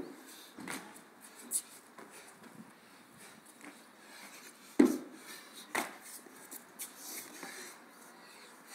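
Feet thudding on top of a plyo box and landing on tiles, with hands and body hitting the ground, during burpee box jump-overs. The loudest thud comes about five seconds in, another a second later, with lighter knocks near the start.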